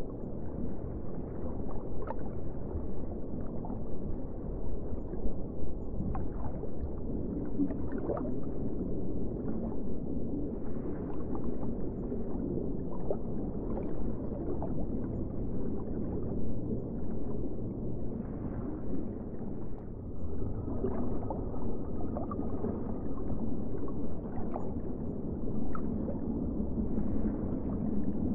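Underwater ambience: a steady, deep, muffled rumble of water with nothing bright in it, dotted with short gurgles and bubble pops.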